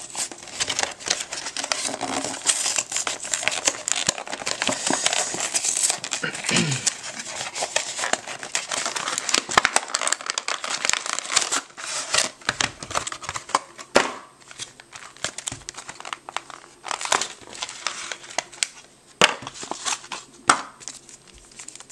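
Packaging crinkling and tearing: plastic wrap peeled off a trading-card box, then the cardboard box opened and foil booster packs handled. It is a dense run of crackles with a few sharper snaps in the second half.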